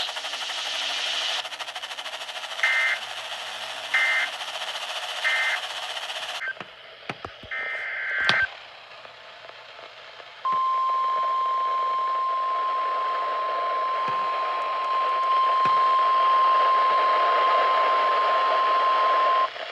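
Weather radio hiss with three short two-pitch data chirps of an Emergency Alert System (SAME) signal, a brief quiet break with one more chirp, then a steady, single-pitched NOAA Weather Radio alert tone held for about nine seconds, announcing the next warning.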